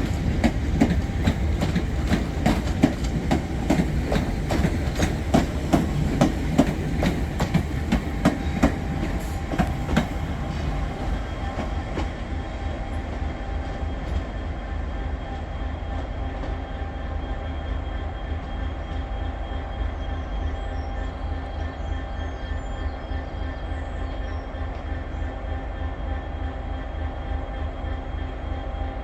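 Train wheels clicking rhythmically over rail joints as a train passes, loudest for the first ten seconds or so, then easing into a steady rumble with a faint held whine from the wheels on the rails.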